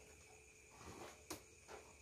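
Near silence: faint handling rustles and one short click about a second and a half in, as the lid of a small styrofoam egg incubator is opened.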